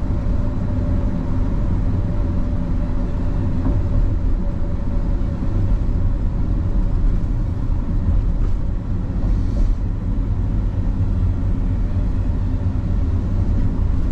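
A vehicle being driven, its engine and tyres making a steady low rumble.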